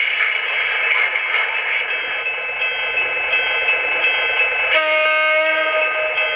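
Electronic horn of an MTH Pioneer Zephyr O gauge model's sound system: a steady noisy sound, then about three-quarters of the way in a single held horn blast of several steady tones.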